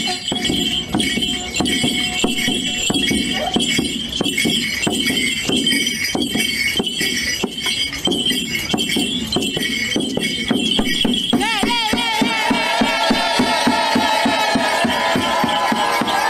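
Mapuche kultrun drum beaten in a steady rhythm with jingling. About twelve seconds in, a wavering chanted voice joins over quicker drumbeats.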